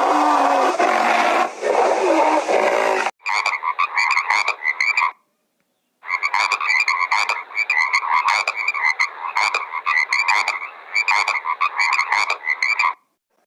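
A dense, noisy sound cuts off about three seconds in, followed by frogs croaking in fast repeated pulses: a short burst, a pause of about a second, then a longer run.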